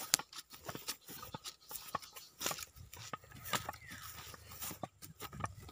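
Footsteps and brushing through dry grass and sugarcane leaves: a run of faint, irregular crackles and rustles.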